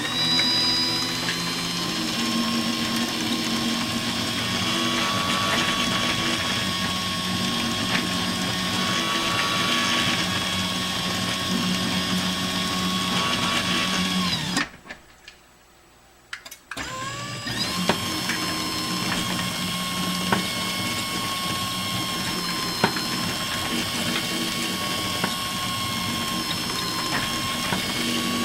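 Genie 2022 garage door opener converted to a side-mount jackshaft operator, its motor running with a steady whine. It stops about 15 seconds in, is silent for about two seconds, then starts again and runs on.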